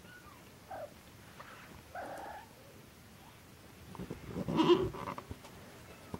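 Three-week-old Norwegian Forest Cat kitten crying while an adult cat holds and mouths it in play: two short cries, then a louder, longer cry about four and a half seconds in.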